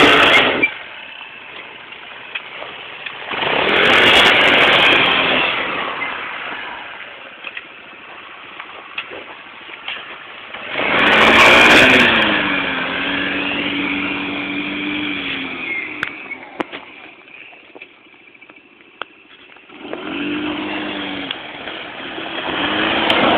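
ATV engine running and being revved: it swells loud several times, about 4 s in, around 11 s, and again near the end, easing off in between. After the middle swell the pitch drops and holds steady for a few seconds.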